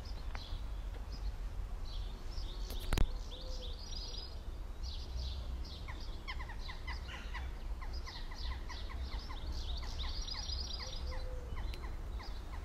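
Small songbirds chirping and singing, with runs of quick falling notes in the middle. One sharp click about three seconds in, over a steady low rumble.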